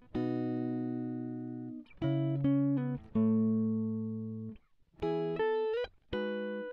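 Background music of plucked chords and short runs of single notes, each struck and left to ring, with a short pause about two-thirds of the way through.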